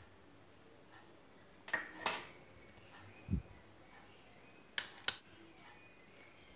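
Metal fork clinking against a small fluted metal tart tin: two sharp ringing clinks about two seconds in, a short dull thump a little after, and two more sharp clicks about five seconds in.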